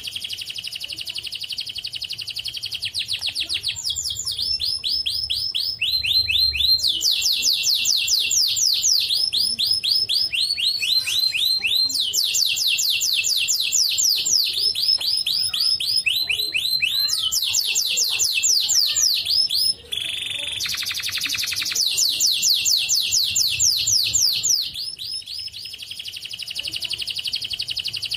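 White domestic canary singing a long run of fast, high rolling trills, one phrase straight after another, broken only by a short pause about two-thirds of the way through.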